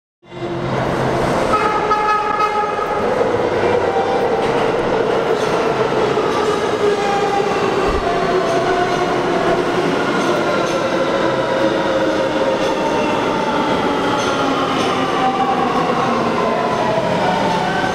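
Kawasaki R211A subway train pulling into a station, its traction motors whining in several tones that fall slowly in pitch as it slows, over the steady rumble of wheels on the rails.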